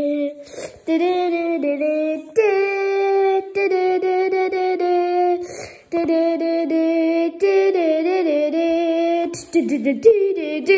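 Wordless singing in a high voice, held on a string of steady notes one to two seconds long with short breaks between them, with no backing beat.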